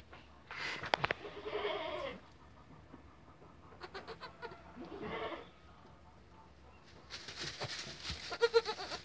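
Newborn goat kids bleating: three short bleats a few seconds apart, with a few clicks and rustling noises between them.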